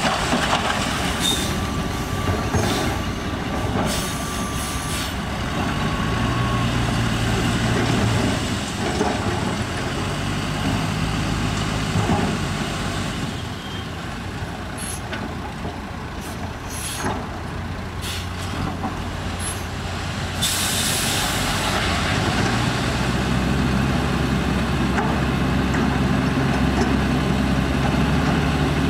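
Heavy diesel dump truck engine running, with a short burst of air-brake hiss about two-thirds of the way in. The engine runs louder over the last several seconds.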